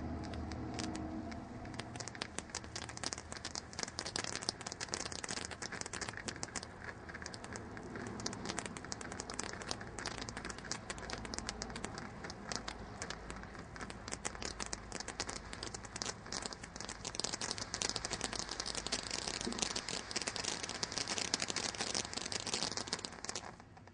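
Golden Flower garden fountain firework burning: a steady hiss of spraying sparks with dense, continuous crackling, growing a little louder in the last few seconds.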